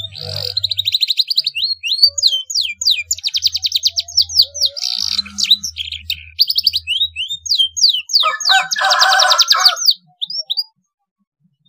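Young domestic canary singing a fast, varied song of rapid trills and quick rising sweeps, laced with phrases learned from the blackthroat. A dense, buzzy trill comes about eight seconds in, and the song stops at about ten seconds.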